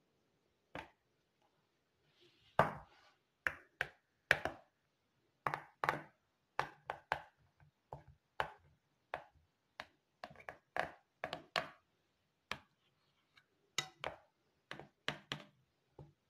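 A metal spoon clicking and scraping against a plastic ice cube tray and a bowl while thick green chutney is spooned into the tray and smoothed level: a run of short, irregular taps, about one or two a second, with soft scraping between.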